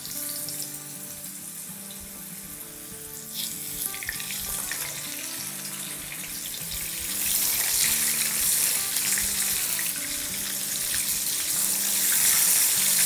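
Marinated fish pieces sizzling as they are laid one at a time into hot oil in an electric wok; the frying hiss grows louder about halfway through as more pieces go into the oil.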